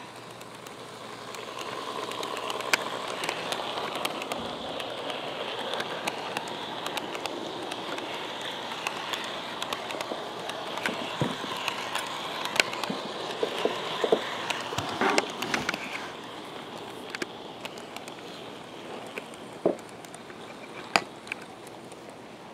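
Model train rolling past on sectional track: a steady rolling rattle with a faint motor whine and scattered sharp clicks. It grows louder about two seconds in and dies down after about sixteen seconds as the train moves away.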